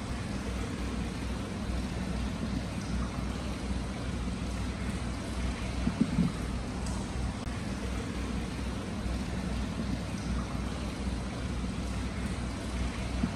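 Hot spring water spilling steadily from a stone inlet basin into an indoor bath, a continuous low rush of water from the free-flowing source. A slightly louder splash comes about six seconds in.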